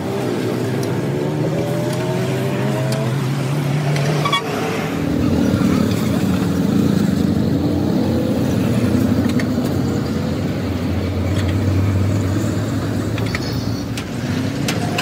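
Road traffic passing close by: vehicle engines running, one speeding up with a rising pitch in the first few seconds, then a heavier engine hum. A few short clicks sound over it.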